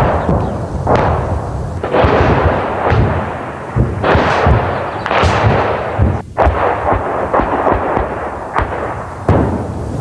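Artillery shells exploding a short distance away in rapid succession, about one blast a second, each with a rumbling tail, so that the blasts run together into dense, continuous shelling.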